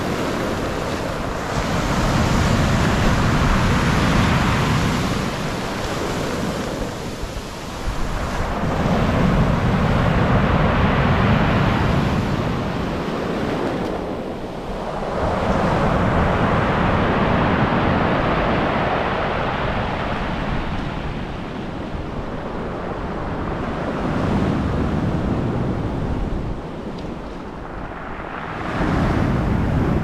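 Black Sea surf breaking on the beach, its rushing hiss swelling and falling back about every five seconds, with wind buffeting the microphone.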